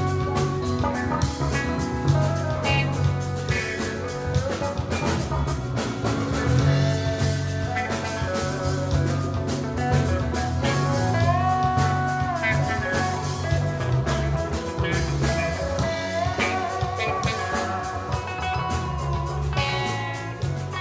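Rock band with electric guitars, electric bass and a drum kit playing a jam. Drums keep a steady beat under a lead line that slides between notes about halfway through.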